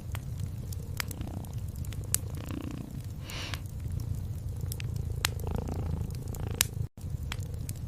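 Domestic cat purring steadily and close, with a wood fire crackling in sharp, scattered pops over it. The sound cuts out for an instant near the end.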